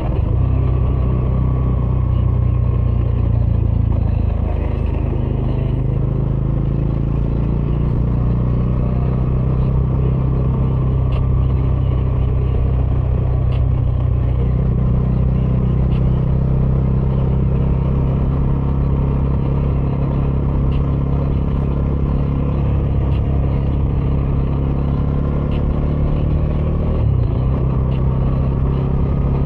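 Bajaj Dominar 400's single-cylinder engine running through its stock exhaust while being ridden, a steady low engine note that steps up in pitch about halfway through and changes again near the end.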